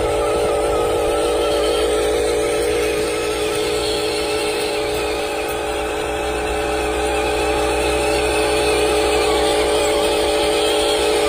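Small electric motor and gearbox of a toy vehicle whirring steadily.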